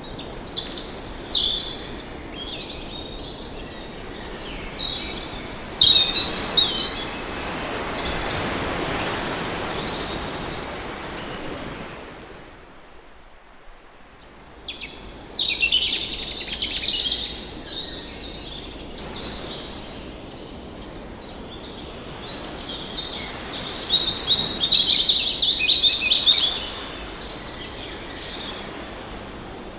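Many birds chirping and calling in quick, high notes over a steady wash of ocean wave noise. The wash swells and fades once about a third of the way in. Midway the sound nearly drops away for a couple of seconds before the birdsong returns.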